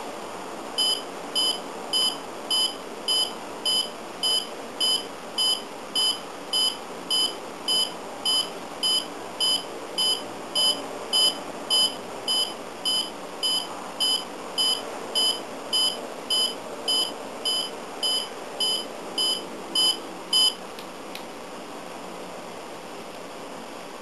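IV-18 VFD clock's alarm buzzer beeping: a fast, even series of short high-pitched beeps, a little over two a second, that stops after about twenty seconds.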